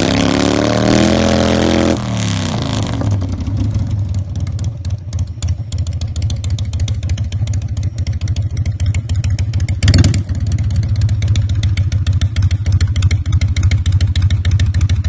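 Harley-Davidson V-twin motorcycle engine held at high revs for about two seconds, then dropping suddenly to a lumpy, uneven idle. About ten seconds in there is a single loud, sharp pop.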